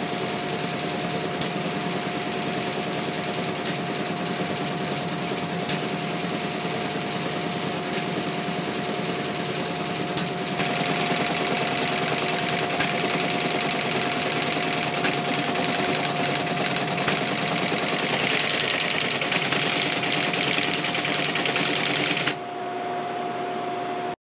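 Teletype ASR 33 printing program output: a steady motor hum under the fast, even chatter of the typing mechanism. The chatter gets louder about ten seconds in and again later, then stops suddenly near the end as the printout finishes, leaving the motor humming.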